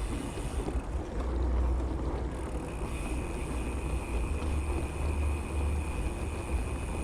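Wind rumbling on the microphone while riding a bicycle, with road noise underneath, gusting harder about a second in and again in the middle.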